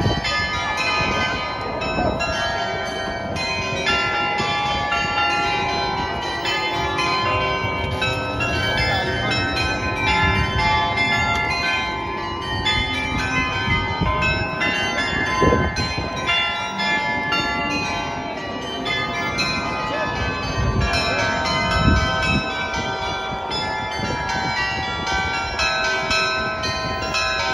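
Church bells ringing, many strokes overlapping and ringing on, as in change ringing.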